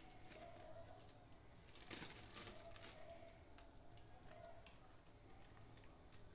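Faint crinkling and crackling of plastic wrap being peeled off a roll of pastel dough by hand, loudest about two seconds in.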